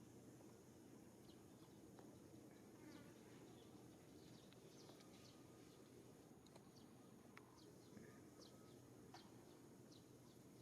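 Near silence: faint outdoor ambience with scattered short, high chirps and a low steady hiss.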